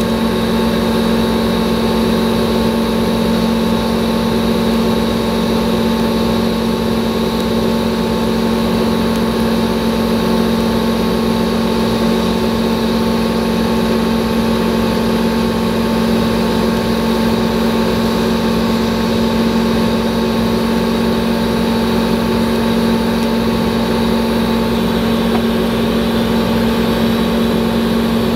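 Steady, unchanging machine hum with several constant tones from a TIG welding setup running during welding.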